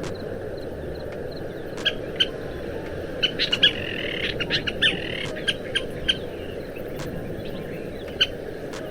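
Scissor-tailed flycatcher calling: a series of short, sharp notes that bunch into a brief chattering run in the middle, with one more call near the end, over a steady low background noise.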